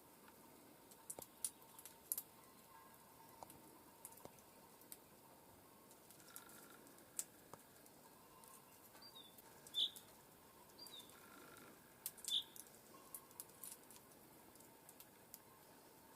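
Small birds at a feeder: faint scattered ticks and clicks, with two pairs of short falling call notes about two-thirds of the way through.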